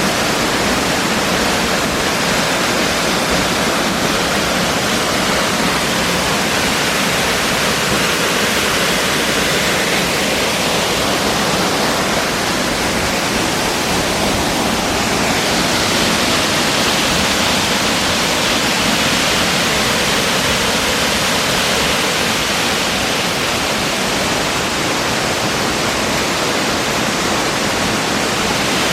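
Waterfall with a 10 m drop, falling water running loud and steady.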